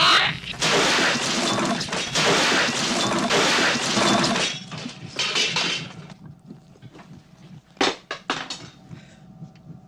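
Dishes and tableware crashing and clattering, with a shrill rising screech at the start, loud for about six seconds and then dying away; two sharp knocks follow about eight seconds in.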